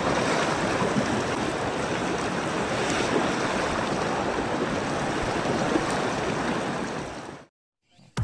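Shallow river rushing over rocks in a rapid: a steady roar of moving water that fades out about seven and a half seconds in.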